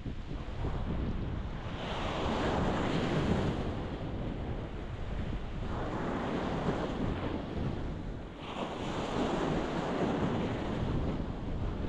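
Ocean waves breaking on a rocky shore, the wash swelling in three surges, with a steady low rumble of wind on the microphone underneath.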